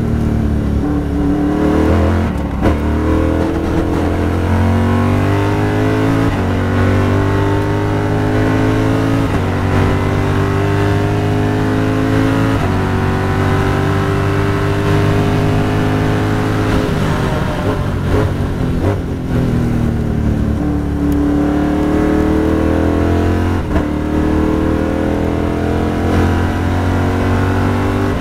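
Sigma race car engine heard from inside the cockpit, pulling hard up through the gears with a step down in pitch at each upshift, about every three seconds. It then drops away under braking with quick downshifts and throttle blips, and climbs in pitch again as the car accelerates out.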